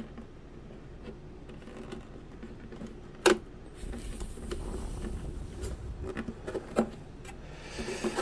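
Hands pressing and rubbing a self-adhesive Velcro strip down onto the inside of an RC boat hull: faint rubbing and handling noises, with one sharp tap a little over three seconds in and another click near the end.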